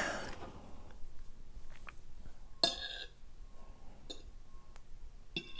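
A metal fork clicking lightly against a plate a few times as food is picked up, with one brief louder clink or sound about two and a half seconds in.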